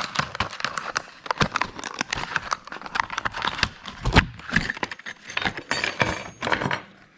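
Irregular clicking and rattling of new metal battery terminal clamps being handled and taken from their opened package, with one louder knock about four seconds in.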